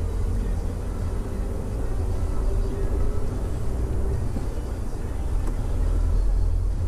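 Peugeot 308 driving through city traffic, heard from inside the cabin: a steady low rumble of engine and road noise, with a faint steady drone for the first few seconds.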